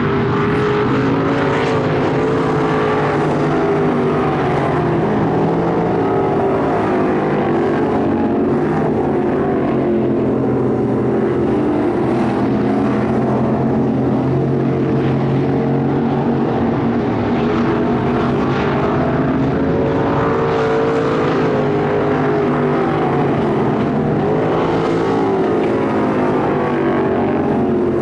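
Race car engines running laps, a steady loud drone whose pitch rises and falls as the cars speed up and back off.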